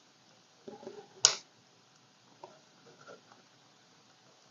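DuPont connector on a ribbon cable being pushed onto the pin header of a Gotek floppy emulator board: a short handling rustle, then one sharp click about a second in, followed by a few faint clicks.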